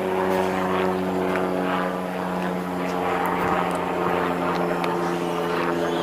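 An aircraft engine droning steadily, one unchanging pitched hum.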